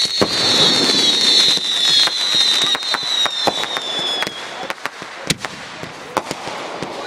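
Fireworks: several high whistles that fall slowly in pitch and fade out about four seconds in, over many small crackling pops, with a sharper bang about five seconds in.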